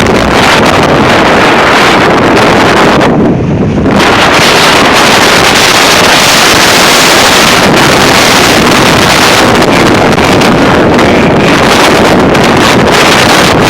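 Strong windstorm gusts blasting across the microphone in a loud, continuous rushing roar, briefly easing in the high hiss about three seconds in.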